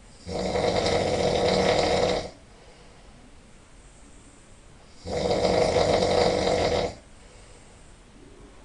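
A person snoring loudly in sleep: two long snores about five seconds apart, each lasting about two seconds, with quiet between them.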